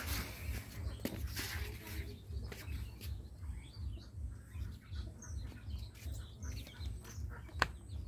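Small birds chirping, a scatter of short high calls, over a low, fast-pulsing hum, with a couple of sharp clicks about a second in and near the end.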